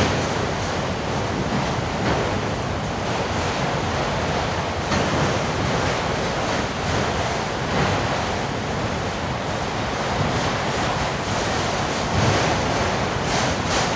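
Autorack freight cars rolling past: a steady rumble and rattle of steel wheels on rail, with brief louder clatters every couple of seconds.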